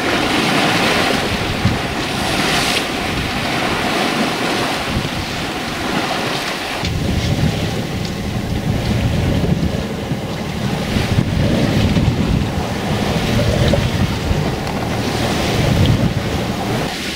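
Sea rushing past the hull of a sailing yacht under way, with wind buffeting the microphone. About seven seconds in the sound drops to a lower, fuller rush.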